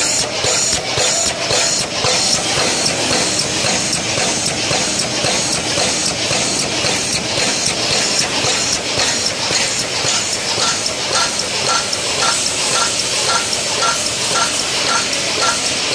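Win 610 stand-up pouch making machine running at about 114 cycles a minute: a steady mechanical clatter with hiss and a regular beat of about two strokes a second. From about two-thirds of the way in, a short high tick repeats on each cycle.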